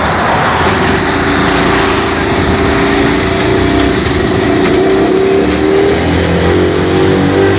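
Homemade mini truck's small motorcycle-type engine running steadily as the truck drives off, a steady engine note over road and wind noise.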